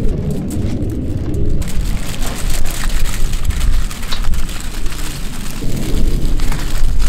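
Strong gusting wind blowing over the microphone as a loud, deep rumble that swells and eases, with rain falling.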